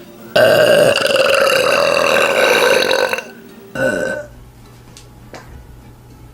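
A person burping: one long belch of about three seconds, then a short second burp half a second later.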